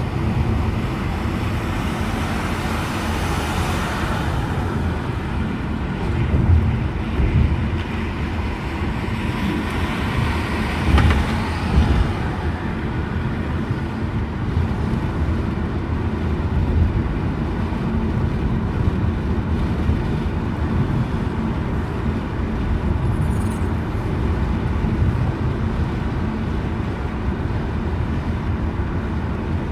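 A moving car's engine and tyre road noise heard from inside the cabin: a steady low rumble. It swells a little a few seconds in and again around ten seconds in.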